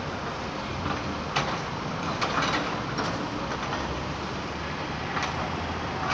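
Demolition excavator working a rubble pile: a steady engine hum with several sharp clanks and crashes of debris.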